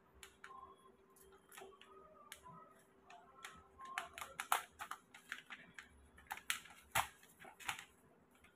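Notebook paper rustling and small clicks and taps as a small paper kite with thin sticks is handled, in an irregular string of short sounds that grows busier about halfway through. A faint steady hum lies underneath.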